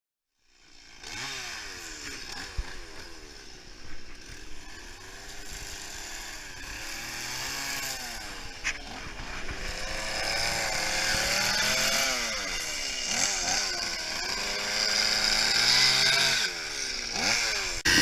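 Chainsaw carving into a wooden log, its engine revving up and down again and again as it cuts. It fades in about half a second in and grows louder toward the end.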